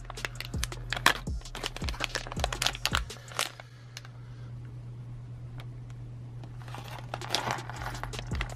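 A foil blind-bag packet being crinkled and torn open by hand: a run of sharp crackles, a quieter stretch in the middle, then more crinkling near the end.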